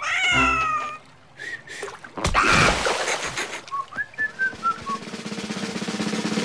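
Cartoon sound effects: a short gliding vocal cry, then a loud splash about two seconds in, followed by a short falling whistle. Background music with a drum beat comes in toward the end.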